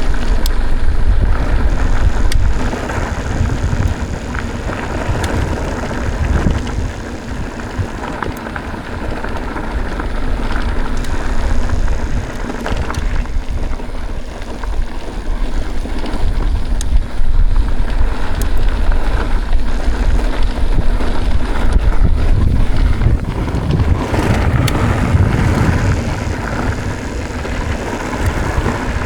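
Mountain bike ridden along a dirt trail: wind buffeting the microphone over a low rumble of tyres on the ground, with occasional clicks and knocks from the bike.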